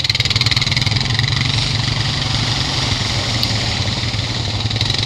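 ATV engine idling steadily up close, an even low hum with no change in revs.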